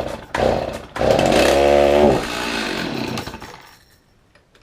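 Stihl MS 310 two-stroke chainsaw being pull-started from cold on half choke. Two quick pulls of the starter cord are followed by the engine firing for about two seconds, then fading out and dying before it keeps running.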